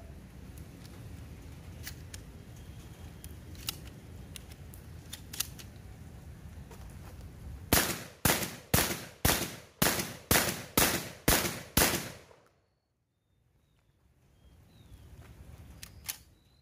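Faint clicks of shotgun shells being loaded into the tube. Then a Benelli M2 semi-automatic shotgun fires about nine rapid shots, roughly two a second, in one quick string.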